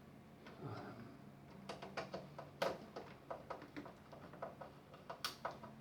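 Irregular sharp clicks and taps of small plastic and metal parts and tools being handled while a cassette boombox's deck is screwed back together, over a faint steady hum.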